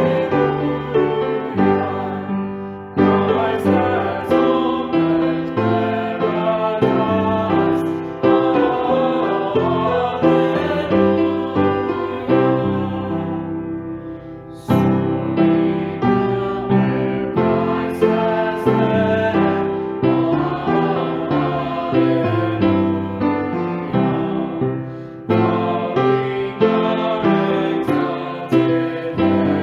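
Hymn music on piano, full chords struck and left to ring away. Near the middle it fades almost out, then a new phrase starts sharply.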